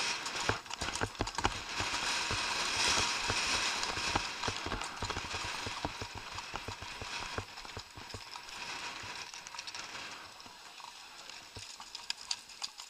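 Horses' hooves striking a gravel track in a quick, uneven run of crunching beats. Over the last few seconds the hoofbeats thin out and grow quieter.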